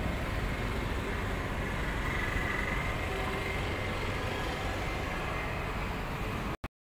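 Steady background noise with no clear single source, continuous and even, cutting out abruptly near the end.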